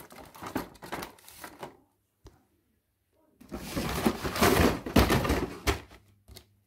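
Cardboard packaging rustling and scraping as a plastic toy train station is slid out of its box: scattered clicks and rustles for the first couple of seconds, then a denser spell of scraping and rustling lasting about two seconds past the middle.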